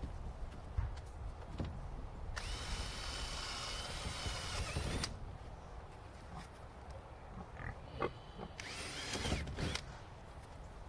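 Power drill running in two bursts, a steady whine of about three seconds and then a shorter one of about a second, with scattered knocks and handling in between.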